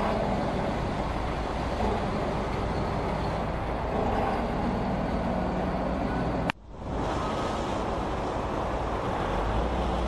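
Automatic gantry bus wash running: rotating brushes scrubbing a bus amid water spray and machinery, a steady rushing noise with a low rumble. It cuts out abruptly for a moment about two-thirds of the way through, then carries on.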